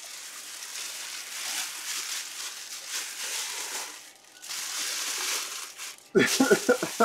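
Plastic wrapping crinkling in two stretches, the second shorter, as it is handled. A short burst of voice follows near the end.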